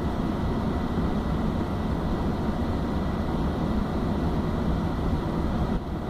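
A car's cabin heater blower fan running at full speed, a steady rush of air with a low rumble from the dashboard vents, blowing warm air fed by a diesel-fired coolant heater.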